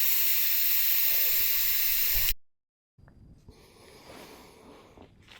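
A loud, steady hiss that cuts off abruptly about two and a half seconds in, followed after a brief gap by only faint, quieter sounds.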